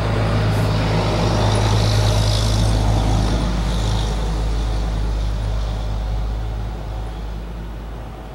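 A large vehicle engine droning with a steady low hum and a hiss on top. It swells to its loudest about two seconds in, then slowly fades, as if passing by.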